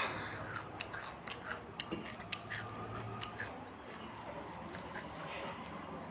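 Close-up chewing of a mouthful of pani puri, small crisp crunches of the fried puri shell, mostly in the first few seconds and thinning out after.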